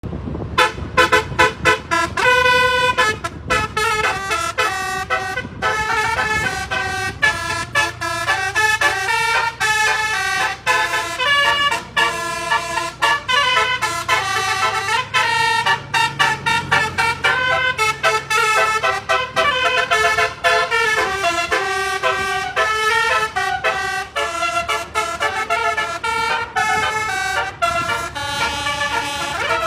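Basuri telolet bus horn, a multi-tone musical horn, playing a fast melody of short notes that keep changing pitch, with a low engine hum under it in the middle.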